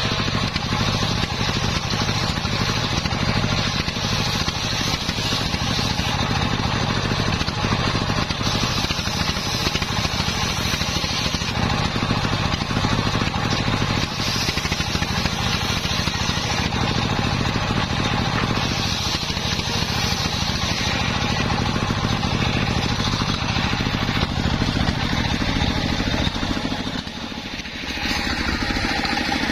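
A stationary engine runs steadily, driving a large circular saw blade that rips wooden boards. The sound dips briefly near the end, then picks up again.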